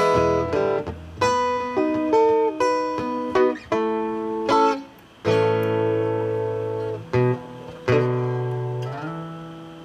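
Acoustic guitar picked instrumentally, single notes and chords plucked and left to ring, with a long chord dying away near the end.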